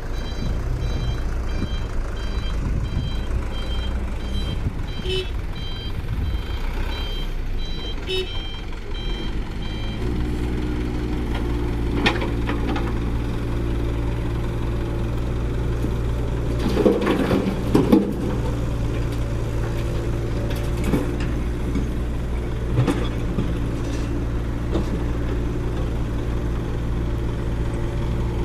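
Heavy construction machinery working: a reversing alarm beeps repeatedly for the first ten seconds over diesel engine noise. After that a diesel engine runs steadily, with a few sharp metallic clanks.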